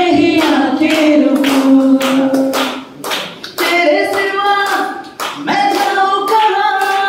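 Singing into a microphone over a PA, with long held notes, as people clap along in a steady beat.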